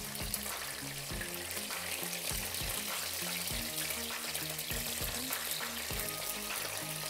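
Beef chapli kebabs sizzling steadily as they shallow-fry in oil, over background music with a steady beat.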